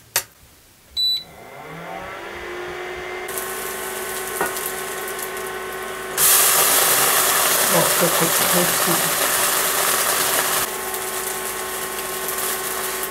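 Thin crepe batter sizzling in a hot frying pan, a steady hiss that grows louder about six seconds in and eases again near the end. Under it runs a steady electric hum from the cooktop, after a short beep about a second in.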